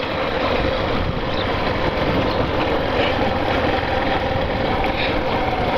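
Yamaha Factor 150's single-cylinder engine running at low speed with a steady hum, over the rumble of its tyres on a cobblestone street.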